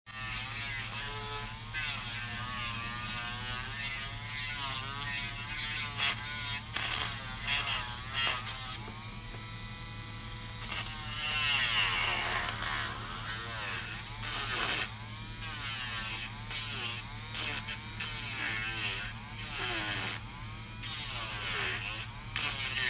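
Electric nail drill (e-file) with a sanding band bit filing gel off a long press-on nail. The motor runs with a steady hum, and its whine dips and rises in pitch as the bit is pressed to the nail and eased off.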